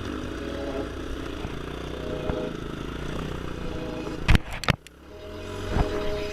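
Trail motorcycle engine running at low revs, with two sharp knocks a little over four seconds in, after which the sound drops away briefly and builds back up.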